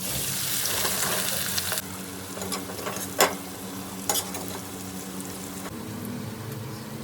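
Food frying in hot oil: a loud sizzle for the first couple of seconds that settles to a quieter fry, with two sharp clacks of a cooking utensil about three and four seconds in, over a steady low hum.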